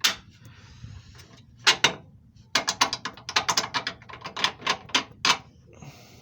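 Ratchet wrench clicking in quick, uneven strokes as a bolt is backed out of a broken engine mount, after a single sharp metallic click at the start.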